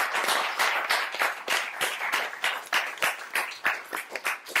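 Audience applauding: dense clapping that thins to scattered separate claps near the end.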